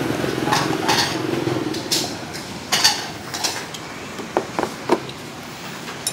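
Chopsticks clinking and scraping against a ceramic noodle bowl: a run of scrapes in the first three seconds, then three sharp clicks about a second and a half from the end.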